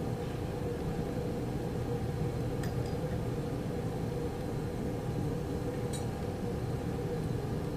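Steady low machine hum with hiss, such as room ventilation or a fan. Two faint light clicks come about two and a half and six seconds in.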